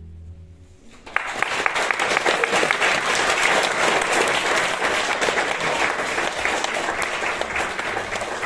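Audience applauding: many people clapping, breaking out about a second in as the last low note of music fades, and thinning near the end.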